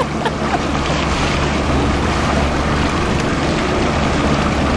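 A small fishing boat's outboard motor running steadily as the boat moves along, with water rushing past the hull and wind buffeting the microphone.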